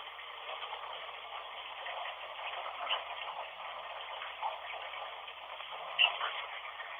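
Steady hiss of running water, with a few faint short blips about three, four and a half, and six seconds in.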